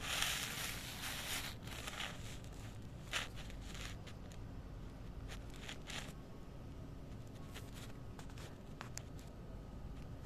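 Several short rustles and scrapes over a low steady hum, the longest in the first two seconds and a sharp one just after three seconds.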